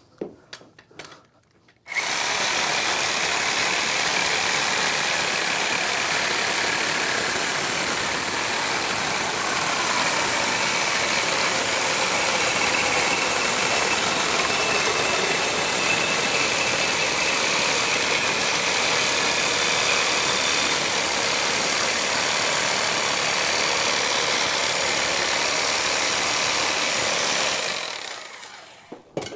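Milwaukee Sawzall reciprocating saw cutting through a copper espresso-machine heat-exchange boiler. It starts abruptly about two seconds in, runs steadily with a high whine, and dies away near the end.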